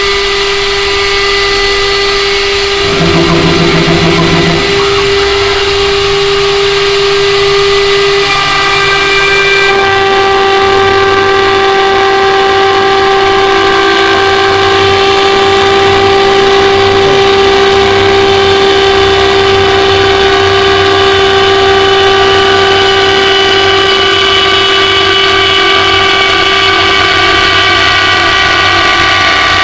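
CNC wood lathe running, with a loud, steady whine from its motors over the noise of the machining. The pitch shifts about three seconds in and again about ten seconds in, then holds steady.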